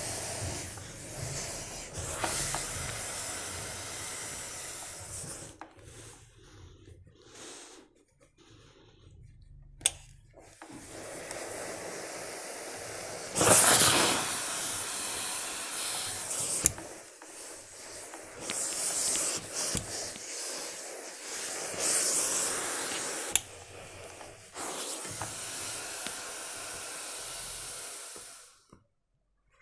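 Steam iron hissing as it presses a wool jacket, the steam coming in long spurts that stop and start several times, the loudest just before the middle. A single sharp click about ten seconds in.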